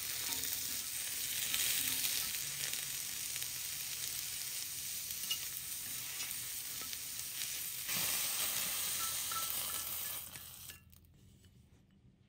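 Cucumber slices sizzling as they are quickly stir-fried with chopsticks in a hot rectangular cast-iron pan. The sizzle gets louder about 8 seconds in, then cuts off abruptly near the end.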